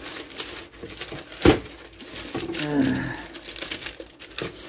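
Parchment paper crinkling and rustling as it is handled in a metal baking pan, with one sharp knock about a second and a half in.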